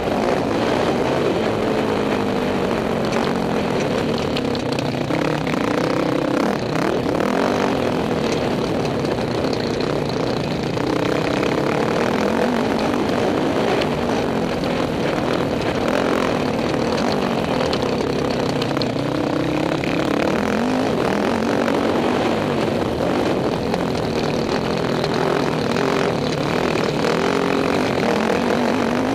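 Dirt bike engine on a motocross track, revving up and falling back again and again as the rider works the throttle and gears, with rushing wind noise on the microphone.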